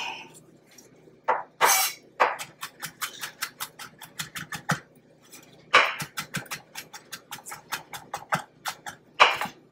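Chef's knife rapidly mincing fresh ginger on a wooden cutting board: a fast run of sharp taps, about six a second, in runs broken by a couple of short pauses.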